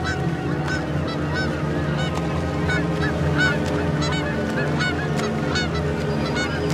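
A large flock of geese calling, many short calls overlapping several times a second, over a steady low hum.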